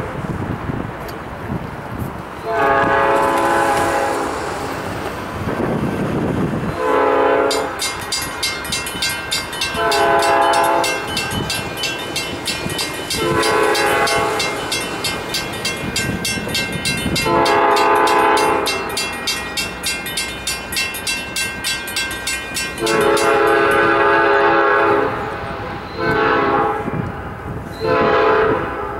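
Diesel locomotive air horn sounding a series of long and short blasts as a freight train approaches a crossing, the longest near the middle and two quick ones near the end. A fast, steadily repeating bell rings from about eight seconds in until shortly before the last blasts.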